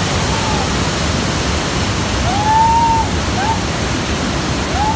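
Waterfall cascade: white water rushing steadily over rock. Above it come a few clear whistled notes that arch up and down, the longest about two and a half seconds in.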